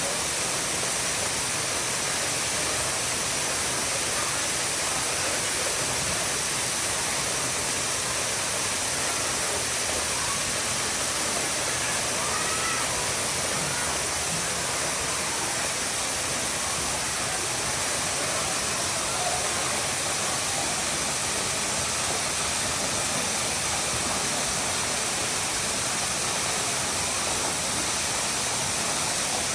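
Waterfall pouring, a steady rush of falling water with a constant hiss.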